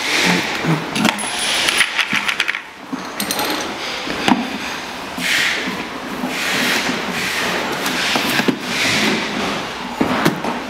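Rear wheels being worked off the axle of a toy electric ride-on dune buggy: plastic scraping and rubbing with scattered clicks and clinks, including a quick rattle of clicks about two seconds in.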